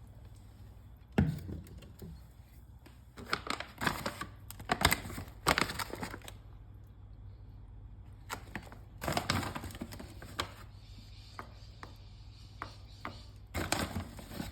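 Scattered knocks, clatters and crinkling from kitchen items being handled while a smoothie is prepared, over a steady low hum.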